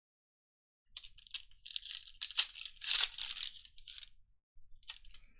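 Foil wrapper of a Mosaic football trading-card pack being torn open and crinkled by hand. A dense crackle starts about a second in and lasts about three seconds, followed by a few short crinkles.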